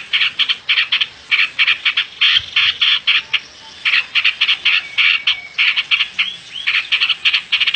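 Animal calls in rapid clicking trains, each burst lasting about half a second to a second with short gaps between, and a few short upward-curving notes near the end.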